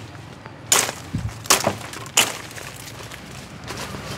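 A knife chopping into bamboo stems: three sharp chops about two-thirds of a second apart, with a duller thud between the first two.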